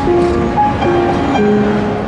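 An upright piano being played with both hands: a melody of held notes over chords.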